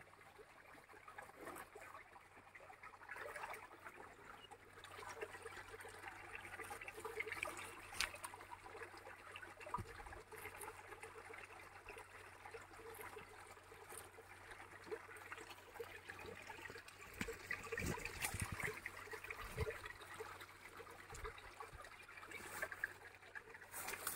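Faint trickle of a shallow stream, with a few scattered short clicks over it.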